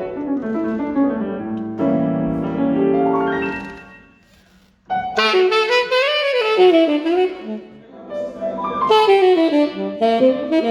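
Saxophone playing with keyboard accompaniment during a sound check. The music fades to a brief lull about four seconds in, then the saxophone comes back in with a run of bending, ornamented phrases.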